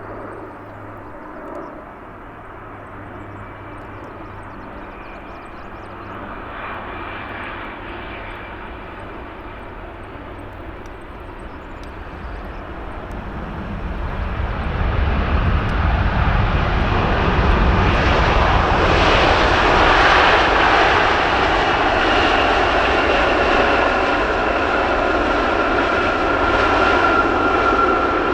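Jet airliner's engines heard as the plane passes the spotting position: a distant rush that swells about halfway in and stays loud. A steady high whine comes in over the last several seconds.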